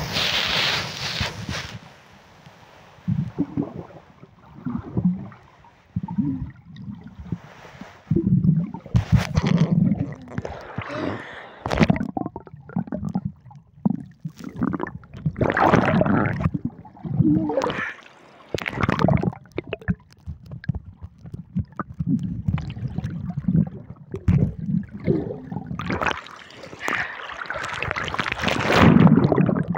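Water gurgling and sloshing around a submerged phone microphone in uneven surges, heard muffled from underwater. Near the end it comes up through the surface, with a louder wash of splashing.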